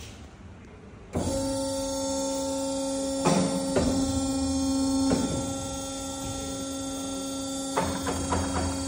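Milling machine's electric motor hum, a steady pitched drone that switches on abruptly about a second in. A few sharp clicks a couple of seconds later, then a cluster of light knocks near the end, from handling the dial indicator and work setup.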